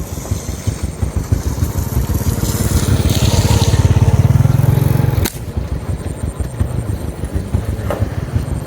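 A small engine running with a rapid low putter that grows louder for a few seconds, then drops off suddenly with a click about five seconds in.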